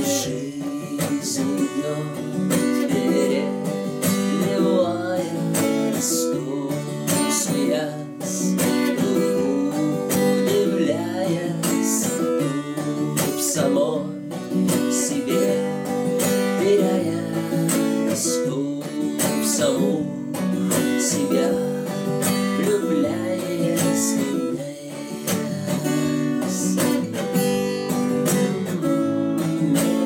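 Cutaway acoustic guitar strummed in a steady rhythm as a song accompaniment, with a man's voice singing over it at times.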